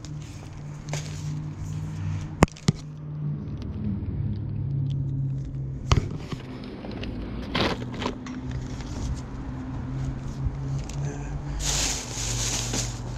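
Engine running steadily with a low hum, with a few sharp clicks and a rustling burst near the end.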